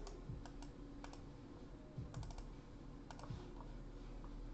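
Faint, irregular clicks of a computer mouse and keyboard.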